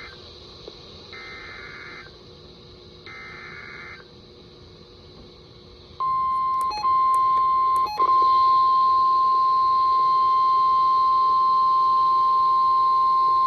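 NOAA Weather Radio emergency alert: the end of the SAME digital header, two quiet one-second bursts of warbling data tones a second apart, then about six seconds in the loud, steady 1050 Hz warning alarm tone starts. The tone has two brief dropouts early on and then holds, signalling that a warning-level alert follows.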